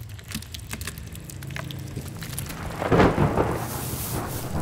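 Audio-drama sound effects of wet drips and splats of spattering bile over a low steady drone, then a loud low rumble about three seconds in.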